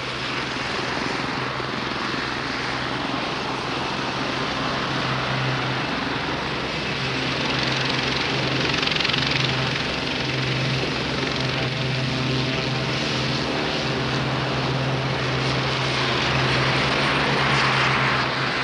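Westland Navy Lynx helicopter, its twin Rolls-Royce Gem turbine engines and rotor running at power as it turns on the deck, then lifts off near the end. A steady low drone under a broad rushing whine.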